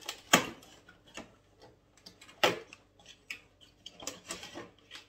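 Hands opening a cardboard advent calendar door and pulling out and handling a small Pringles can: a string of sharp clicks and taps, the loudest about a third of a second in and another about two and a half seconds in, with rattly scraping near the end.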